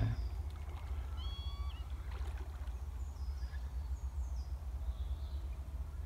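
Low, fluttering rumble of wind on the microphone, with a few faint bird calls: a short whistled call about a second in and high, descending chirps a few seconds later.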